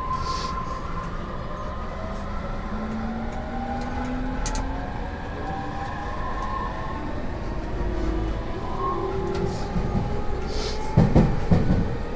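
Running noise of an E231-1000 series EMU heard from inside the car: the VVVF inverter and traction motors make several whining tones that slowly shift in pitch over the rumble of the wheels. The train is slowing toward Urawa station. On this set the uploader reports an abnormal noise around the inverter's asynchronous–synchronous mode change. About 11 s in, a short run of low thumps and rattles comes through, as from the wheels crossing rail joints or points.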